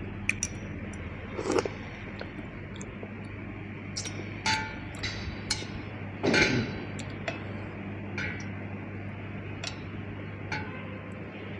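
Chopsticks clinking and tapping against a ceramic bowl and the metal hot-pot dish while eating, in light scattered clicks, with one louder clatter about six seconds in. A steady low hum runs underneath.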